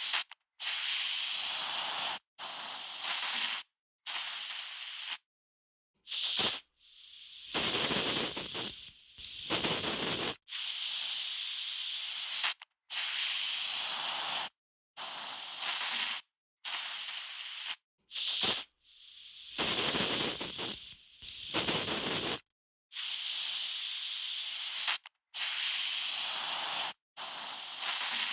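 Aerosol spray can hissing in a series of short sprays, each lasting about one to two seconds and cutting off sharply, with a couple of longer, rougher, sputtering sprays in between.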